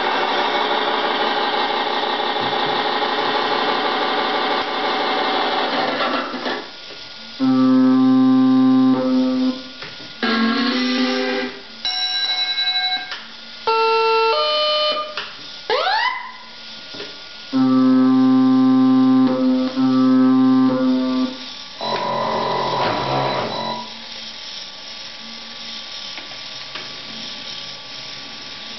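Electronic sound module in an RC model rescue cruiser playing ship sound effects one after another. A dense steady running sound lasts about six seconds. Then come separate steady tones of one to three seconds with short gaps, the longest about eight and eighteen seconds in, and a quick rising whistle about sixteen seconds in. It settles to a quieter steady hum.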